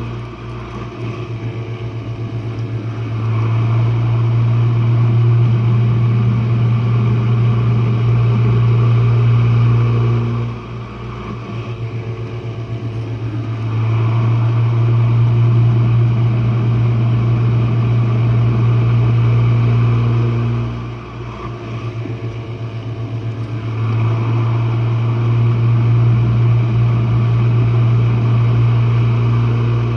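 Jenn-Air dishwasher running mid-wash, heard from its bottom: a loud, steady low motor hum that eases off for a few seconds and swells back up about every ten seconds, with a faint fluttering rhythm in the softer stretches.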